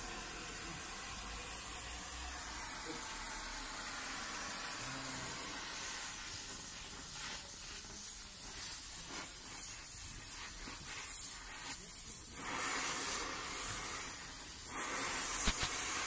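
Oxy-fuel gas torch flame hissing steadily as it heats metal.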